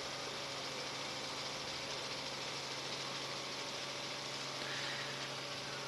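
Steady, even drone of a news helicopter in flight, heard from inside the cabin, with a constant low hum under it.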